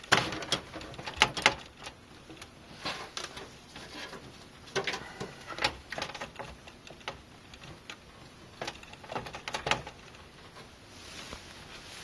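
Irregular clicks, taps and light knocks of a motherboard being shifted and pressed into place in a metal PC case, its rear connectors pushing against the I/O panel. A few sharper clicks come near the start.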